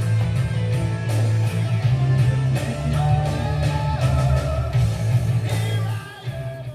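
Background rock music with guitar; the heavy low end drops away near the end.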